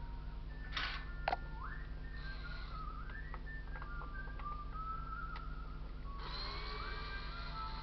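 A person whistling a wandering tune, with two sharp clicks about a second in, over a steady low hum. From about six seconds, a fuller sound with several tones at once, like music, joins the whistling.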